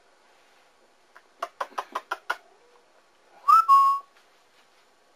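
Squeaky plush dog toy being chomped by a puppy: a quick run of six short squeaks, then about three and a half seconds in a longer, loud squeak that rises and then holds its pitch.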